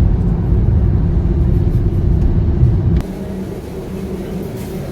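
Road noise of a moving car: a steady, heavy low rumble that cuts off sharply about three seconds in, giving way to a quieter, even hum.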